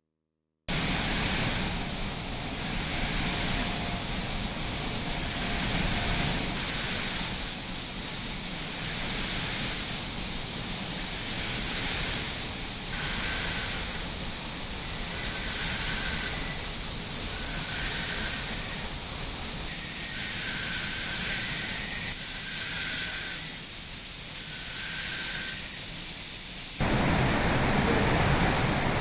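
Steady hiss of air and spray equipment in a car-body paint shop, with faint short beeps every couple of seconds in the second half. Near the end it changes to a deeper, louder rushing.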